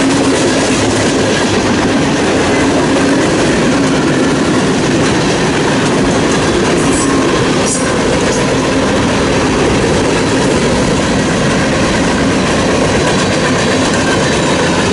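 Tank cars and boxcars of a passing freight train rolling by at speed: a loud, steady noise of steel wheels on the rails, with a brief knock about eight seconds in.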